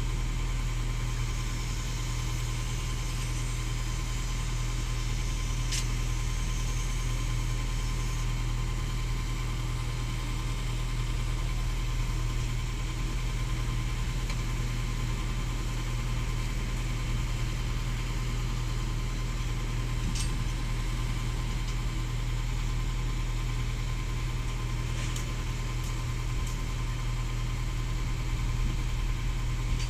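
Excavator's diesel engine running steadily at a low, even speed, with a few faint clicks.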